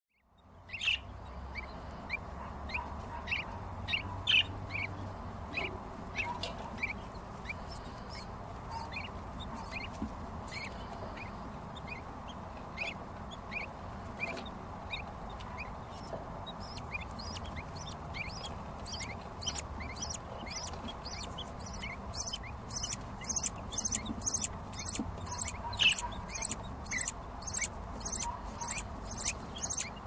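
Budgerigar chick begging for food: short high chirps repeating all through. In the last several seconds they become a louder, faster run of shrill cheeps, about two to three a second, as it is being fed.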